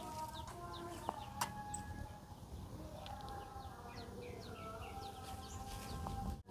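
Chickens calling in drawn-out notes while small birds chirp repeatedly in short falling chirps.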